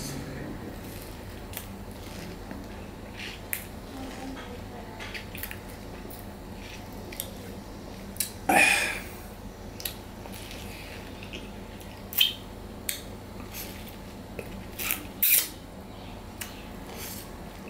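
Close-miked mouth sounds of a man sucking and chewing on a lime half: scattered small wet smacks and clicks, with louder slurps about eight seconds in and again around twelve and fifteen seconds.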